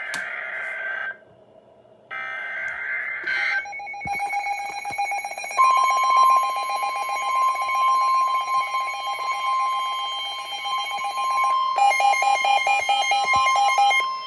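Emergency Alert System signal on a NOAA Weather Radio broadcast, announcing a warning. It opens with two short buzzing digital header bursts about a second apart, then a pulsing alarm tone. A steady high tone, the weather radio's 1050 Hz warning alarm, joins about five seconds in. Near the end the lower tone turns into rapid on-off beeps.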